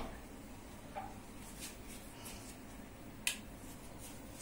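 Hands handling a parcel and clothing: a few soft rustles and light clicks, the sharpest about three seconds in.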